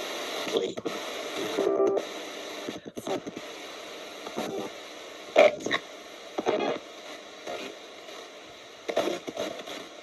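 Spirit box radio sweeping through stations: a steady static hiss broken by brief, choppy snatches of broadcast sound about every second.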